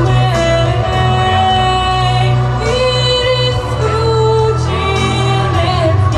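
A young girl singing a song into a handheld microphone over instrumental accompaniment, holding long notes.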